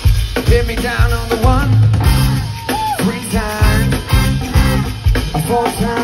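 Live pop band playing, with a drum kit keeping a steady beat of about two strong hits a second under a wavering melody line.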